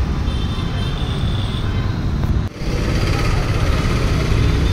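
Steady roadside traffic noise with a dense low rumble, dipping briefly about two and a half seconds in.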